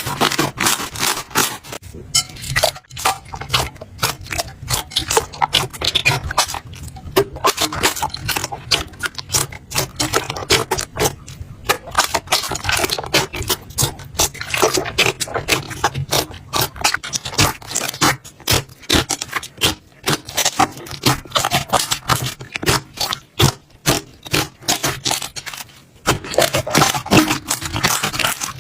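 Slime being squeezed and worked by hand, giving a dense, irregular run of sticky clicks and pops over a faint low hum.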